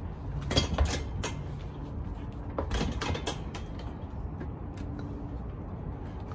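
Sneakers scuffing and tapping on a concrete floor during fast footwork. There is a quick run of knocks in the first second, another cluster around three seconds in, and a few scattered taps later, over a steady low hum.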